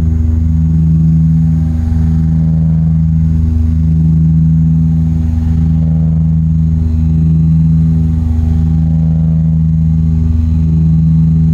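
Turboprop airliner's engine and propeller droning steadily, heard inside the cabin, with a slow throb about every one and a half to two seconds.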